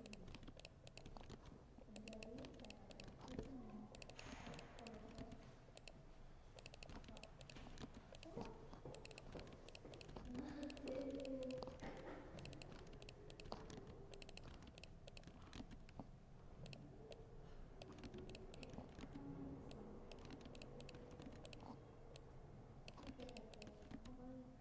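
Typing on a laptop keyboard: a steady, irregular run of soft, quiet key clicks throughout.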